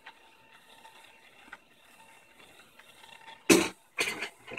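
Small DC motor faintly whining as it drives a laser-cut cardboard planetary gear set. Near the end, two loud coughs about half a second apart.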